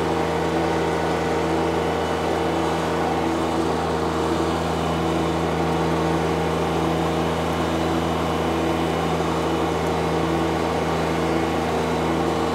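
Ventrac 4200 compact tractor running at a steady engine speed as it drives its front power rake along bare dirt, making one even, unchanging engine note.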